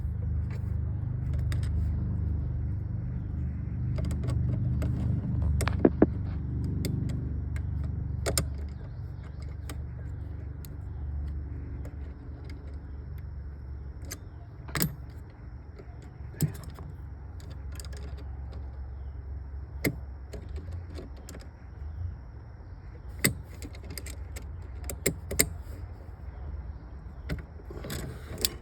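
Scattered metallic clicks and clinks of hand tools and kill-switch hardware being worked onto a car battery terminal, over a steady low rumble that eases off about eight seconds in.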